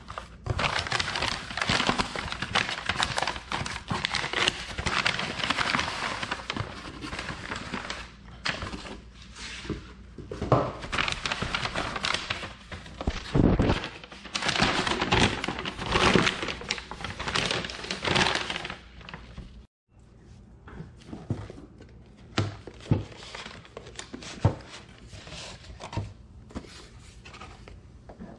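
Brown kraft packing paper crinkling and rustling as it is pulled out of a cardboard shipping box. After a sudden break about twenty seconds in, the handling goes on much more quietly, with scattered light taps and clicks.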